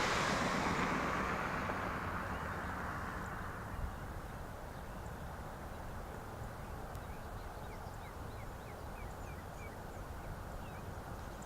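A rushing noise fades away over the first couple of seconds. Then a low steady rumble remains while small birds chirp repeatedly in short, quick notes.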